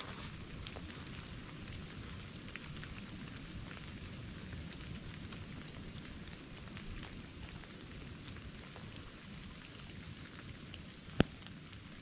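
Light rain pattering steadily in the woods, many small drops ticking, with one sharp click about eleven seconds in.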